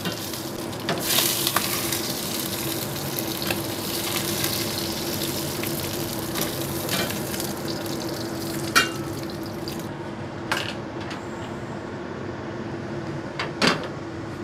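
Pieces of pindang fish frying in oil in a non-stick pan, a steady sizzle, with a wooden spatula stirring, scraping and now and then knocking as the fried pieces are lifted out. A steady low hum runs underneath.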